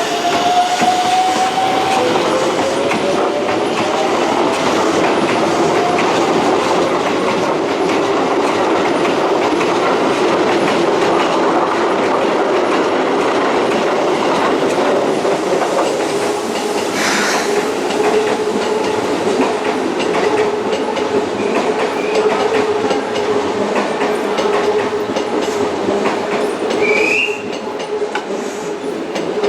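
Electric commuter train running through a station, its wheels clattering over the rail joints. Stepped, rising whines sound over the first few seconds, and a steady whine runs through the second half.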